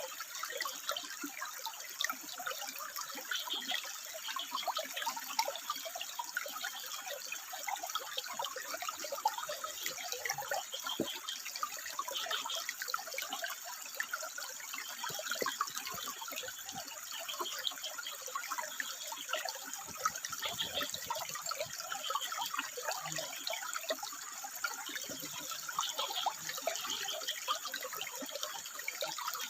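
Water trickling and splashing over rocks in a steady, busy babble.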